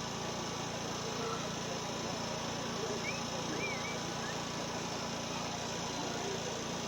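Steady murmur of a large street crowd over a low electrical hum, with a few short high chirps near the middle.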